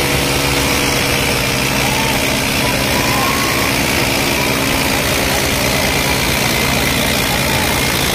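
Two diesel tractors, an Eicher 5660 and a Swaraj 855, running hard under full load as they push against each other with their front wheels lifted: a steady, unbroken engine drone. Crowd noise sits behind it.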